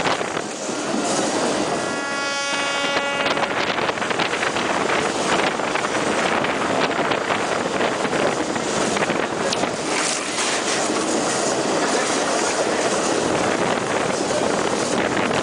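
Diesel-hauled passenger train running, heard out of an open coach window as a steady rushing noise. The locomotive's horn sounds once, about two seconds in, for roughly a second and a half.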